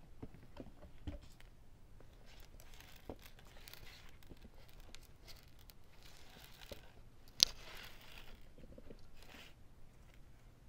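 Confetti and paper debris rustling and crinkling as a hand rummages inside a clear plastic vacuum dust bin, with small scattered ticks and one sharp click about seven seconds in.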